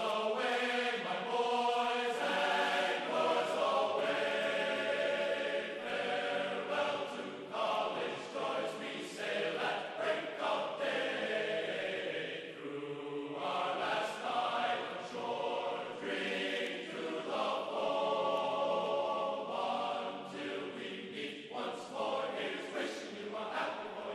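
Background music: a choir of voices chanting in long held notes.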